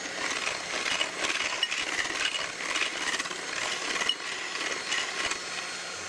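Electric mixer running steadily, its beaters clicking and clinking against the bowl as it creams softened cream cheese and sweetened condensed milk together.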